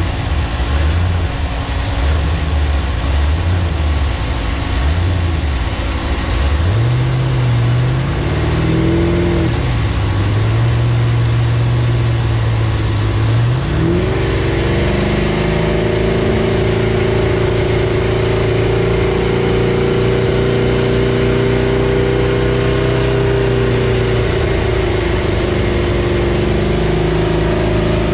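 Chevy SS's 6.2-litre V8 running on a chassis dyno. It runs low and uneven for the first several seconds, then accelerates with its pitch rising in steps and dropping back once, as at a gear change. About halfway through it climbs to a higher speed and holds there for over ten seconds before easing off at the very end.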